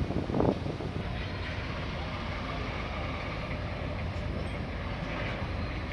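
Steady rumble of city street traffic with wind buffeting the microphone, louder for a moment right at the start.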